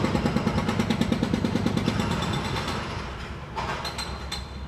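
Hydraulic breaker hammer pounding concrete in a rapid, even run of blows that fades away a little past halfway. A few sharp clinks near the end.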